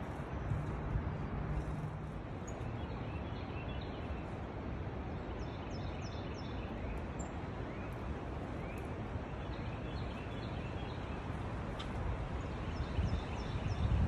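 Wind blowing through trees and dry leaves and buffeting the microphone, with a louder gust near the end. Faint high bird chirps come in two quick runs of about four notes, one near the middle and one near the end.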